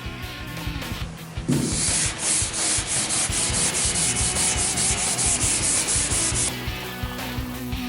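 Sandpaper being rubbed back and forth by hand over a car body panel, about four strokes a second. It starts about a second and a half in and stops a second or so before the end.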